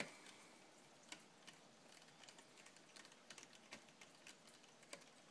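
Faint, scattered light clicks and taps of small hand tools and screws being handled while an RC car's transmission is unbolted, at irregular intervals.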